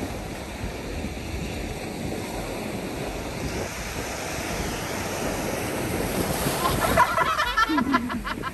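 Sea waves breaking and washing in over rocks on the shore, with wind on the microphone. A person's voice comes in briefly near the end.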